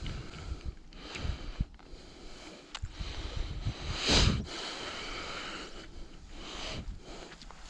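Close breathing of a man through the nose: several noisy breaths, the loudest about four seconds in, over low knocks and rustle from handling.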